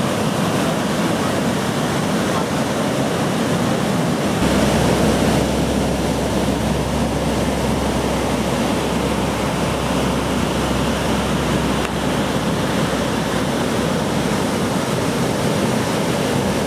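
Heavy breaking surf: a steady, loud wash of waves crashing and whitewater rushing. About four seconds in, a deeper low rumble joins it.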